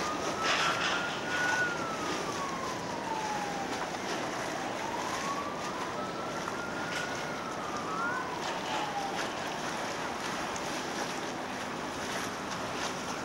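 Steady rush and splash of water pouring into a concrete drainage pit. Over it a siren wails slowly up and down twice, dying away about two-thirds of the way through.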